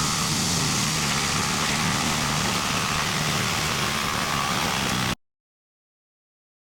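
Lawn mower engine running steadily, cutting off abruptly about five seconds in.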